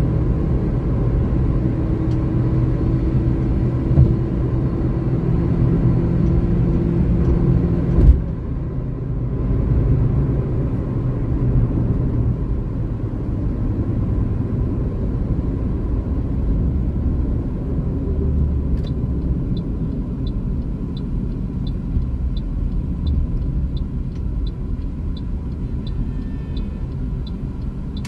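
Car cabin noise while driving and slowing down: steady road and engine rumble with a hum that rises slightly and stops at a thump about eight seconds in. From about nineteen seconds a turn-signal indicator ticks steadily, about twice a second.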